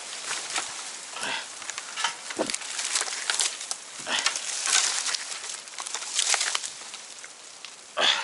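Irregular rustling and crackling of leaves and branches, with a sharper crack near the end.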